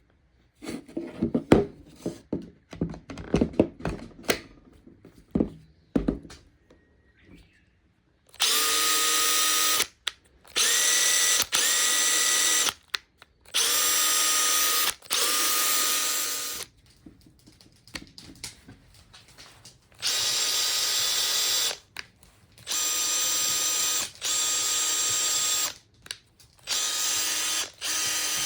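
Clicks and clattering of the Makita TP131D cordless 4-mode impact driver being handled, then its motor run free with no load in seven short trigger pulls of about one and a half to two seconds each, a steady whine that rises briefly in pitch as each run starts.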